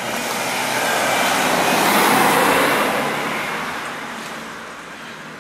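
A vehicle passing by: a rushing, noisy sound that swells to its loudest about two seconds in and then fades away.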